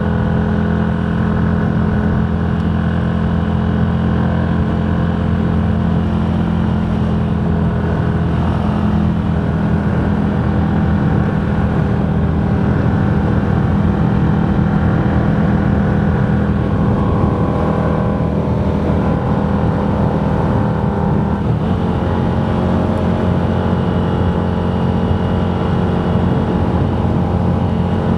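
Motorcycle engine running steadily at cruising speed, its note shifting a little about three quarters of the way through.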